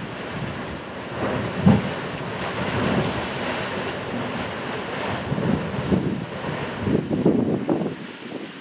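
Ocean surf surging into a narrow channel between rocks and washing back, with gusts of wind rumbling on the microphone.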